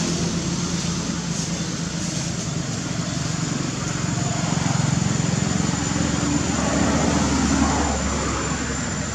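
A motor engine running steadily, growing louder about halfway through and easing off near the end, with a thin high steady tone above it.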